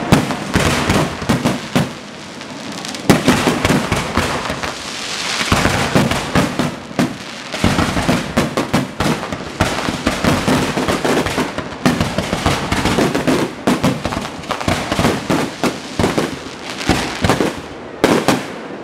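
Fireworks display: a dense, irregular barrage of aerial shell bursts and crackling, many bangs overlapping. It eases off briefly about two seconds in, then picks up again with a sharp loud bang.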